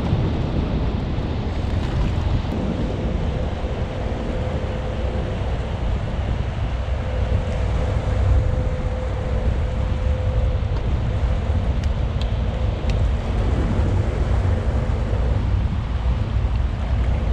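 Wind buffeting the microphone: a steady, heavy low rumble. A faint steady hum runs under it for several seconds.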